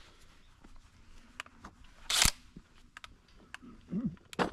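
Scattered handling noises from work with tools and hardware: light clicks and ticks, with one short, loud scrape or rustle about two seconds in and a couple of knocks near the end.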